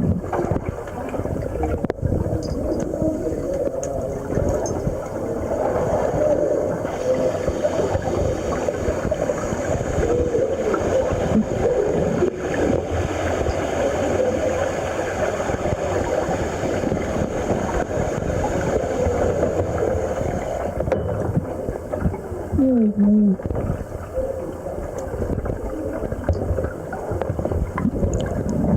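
Underwater sound in the sea: a steady muffled rush of water and bubbling, with a faint high whine through the middle and one short falling tone about three-quarters of the way through.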